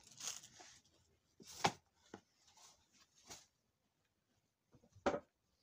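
Faint, short rustles of lawn cloth and a paper picture card being handled, four brief rustles with a quiet stretch in between, the strongest about one and a half seconds in and about five seconds in.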